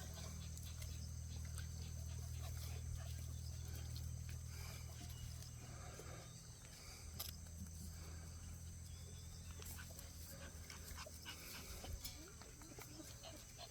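Jindo puppies playing, faint and intermittent, with small scuffles and clicks over a steady low hum.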